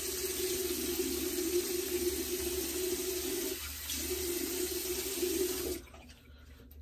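Bathroom faucet running cold water for rinsing a freshly shaved head: a steady rush with a low hum. It dips briefly about three and a half seconds in, and the water is shut off shortly before the end.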